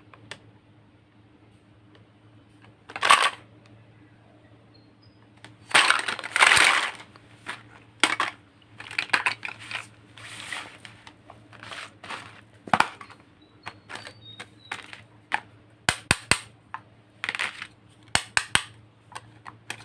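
Plastic toy food and toy kitchen pieces being handled: a scattered series of sharp clicks and taps, with a few longer rustling or tearing noises, the loudest about six seconds in. A faint steady hum runs underneath.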